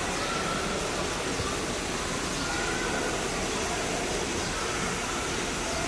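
Steady rushing background noise inside a glass-domed indoor rainforest, with a few faint, short, high calls on top.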